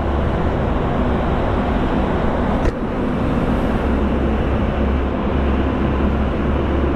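Steady engine and road noise of a vehicle moving through a long road tunnel, with wind rumbling on the microphone. A single sharp click about two and a half seconds in.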